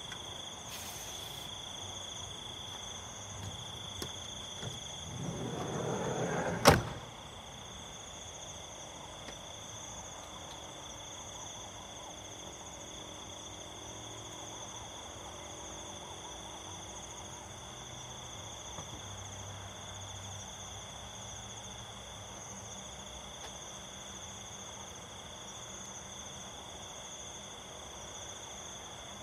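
Crickets and other insects chirping steadily. About five seconds in, a rolling slide builds for a second and a half and ends in a sharp slam, like a campervan's sliding door being run shut.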